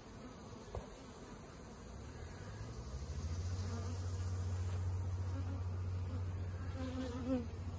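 Honeybees buzzing around their hives: a low, steady hum that swells about two to three seconds in and then holds.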